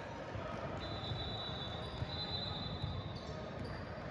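A basketball bouncing on a hardwood gym floor during play, amid the hall's echoing background noise, with a thin high steady tone from about a second in to near the end.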